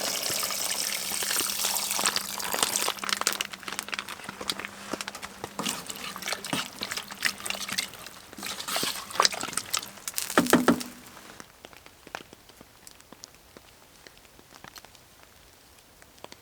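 Liquid pouring and splashing, with scattered clicks. A few loud knocks with a brief ring come about ten and a half seconds in, followed by low faint ticking.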